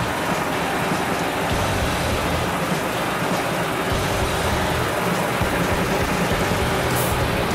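UD Trucks Quon tractor head's diesel engine idling steadily, heard up close to the truck.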